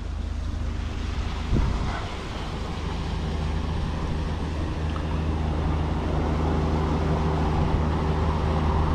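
Large motor cruiser's engine droning steadily as it passes at speed, getting gradually louder. A brief thump comes about one and a half seconds in.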